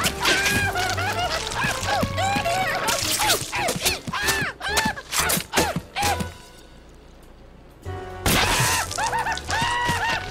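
Cartoon soundtrack: music with high, gliding character cries and sharp clicks. It drops to a quiet pause for a second or two just past the middle, then picks up again.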